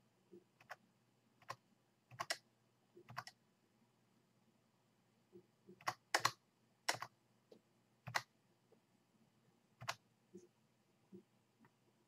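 Computer keys clicking: about a dozen sharp clicks at irregular intervals, several in quick pairs, over a faint low hum.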